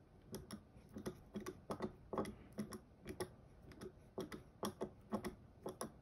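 Faint, irregular light clicks and taps, about four a second, from small metal parts and tools being handled on a pistol slide during an optic installation.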